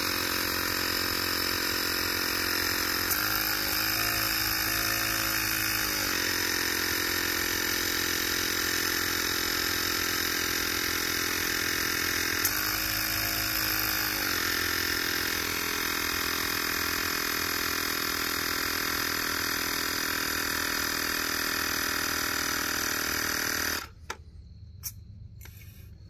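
Ryobi cordless tyre inflator running steadily as it pumps air into a dirt bike tyre to seat the bead, its battery low. It cuts out about 24 seconds in.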